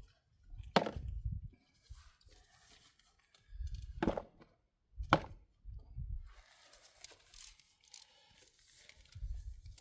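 Handling noise of someone working a drain plug by hand under an ATV engine: three sharp metallic knocks and clicks, spread out, among low bumps and rustling.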